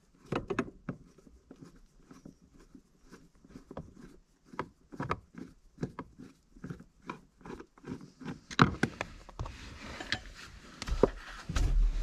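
Hand-tool work in a car footwell: a screwdriver and pedal parts give irregular small clicks and taps. Near the end come a louder rustling and a low thump.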